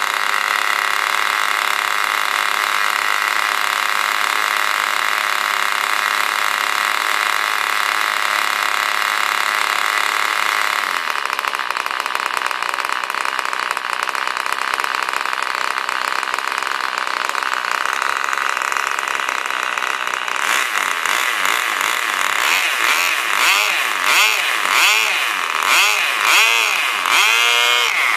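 Nitro glow engine of a Junior 60 radio-control model plane running with a high-pitched whine. About eleven seconds in the sound drops a little, and over the last several seconds it swells and dips about once a second.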